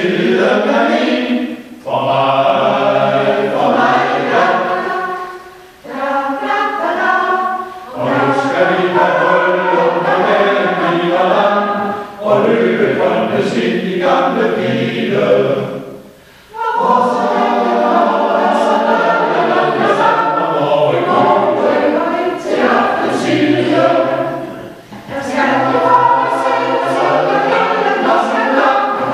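Mixed choir of men's and women's voices singing a song, in phrases broken by short pauses for breath.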